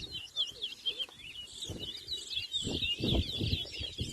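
Towa-towa (chestnut-bellied seed finch) singing in a song race: a fast, unbroken twittering warble of short, quick-gliding high chirps.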